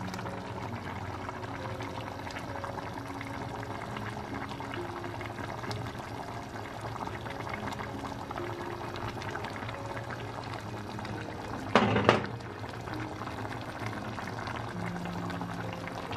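Stew bubbling in a steel saucepan over background music, with a brief loud clatter about twelve seconds in.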